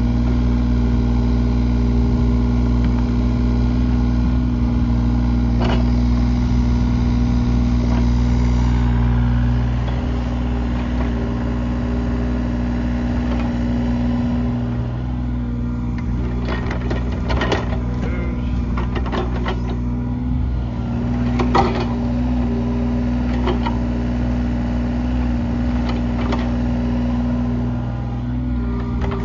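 John Deere 35G mini excavator's diesel engine running steadily under digging work, slightly quieter about a third of the way in. Past the halfway point a cluster of clanks and scrapes sounds over the engine.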